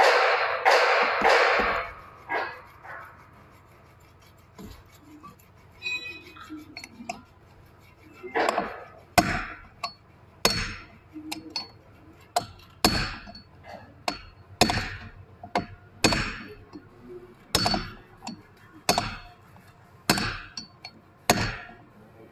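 A burst of noise in the first two seconds, then from about eight seconds in a steady series of hammer blows on a steel socket used as a drift, roughly one every second and a half, each with a short metallic ring. They are driving a new oil seal into the bore of a Toyota power steering housing.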